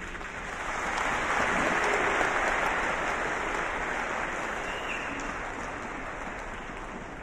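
A large audience clapping, swelling over the first two seconds and then slowly dying away.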